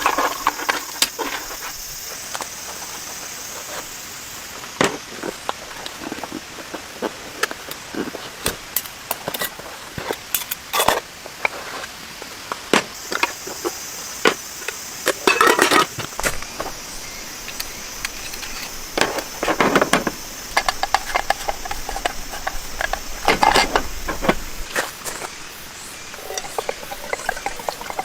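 Steady rain hiss with many sharp clicks and several louder bouts of clatter and knocking, as of things being handled and set down.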